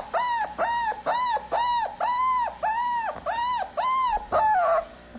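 A corgi puppy giving a steady run of high-pitched yips, about two a second, each one rising and falling in pitch, ending with a longer falling yip near the end.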